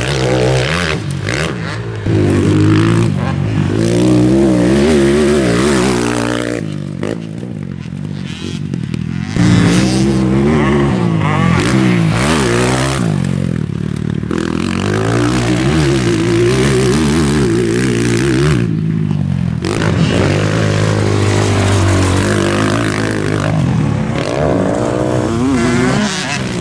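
BHR 300 R motocross bike ridden hard around a dirt track, its engine revving up and down as the throttle opens and gears change. Twice the sound briefly drops back as the throttle is shut.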